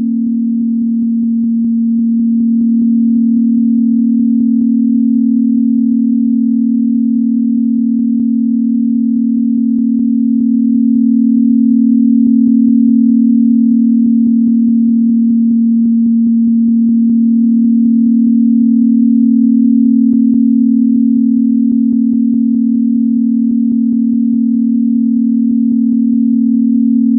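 Steady synthesized pure sine tone, low in pitch, held unbroken with slow, gentle swells in loudness.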